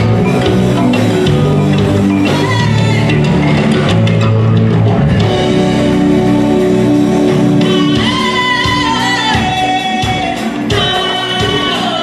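Amplified pop music: female vocals sung into microphones over a backing with a strong, steady bass line. In the second half the singing comes forward, with long held notes that slide downward.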